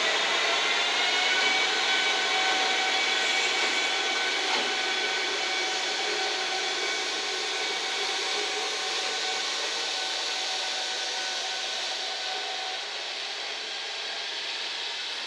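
JR Freight EF210-300 electric locomotive pulling away, its cooling blowers rushing steadily under a whine that rises in pitch for the first second or so and then holds steady. Slowly fading as the locomotive moves off.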